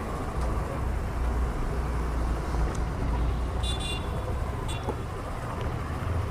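Road traffic and engine rumble, with two short high-pitched horn toots about a second apart midway.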